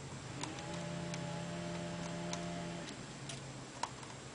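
Light, irregular clicks of a lock pick working the telescoping pins of a Mul-T-Lock Interactive dimple lock during single-pin picking, with the sharpest click near the end. A low steady hum runs from about half a second in to about three seconds in.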